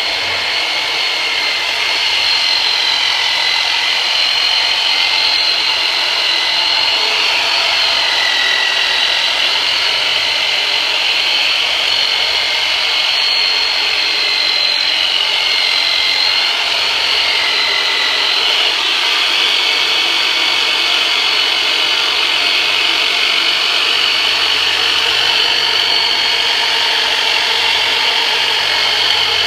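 Modified Black & Decker jigsaw, used as a percussive massager, running steadily as it is worked over a patient's back for myofascial release: a loud, continuous sawing whine whose pitch dips slightly now and then.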